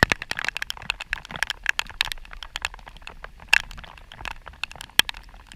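Raindrops hitting the camera and its microphone: a dense, irregular crackle of sharp taps.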